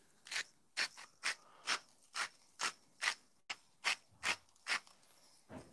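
Hand-twisted salt grinder grinding salt: a run of short, evenly spaced grinding crunches, about two a second.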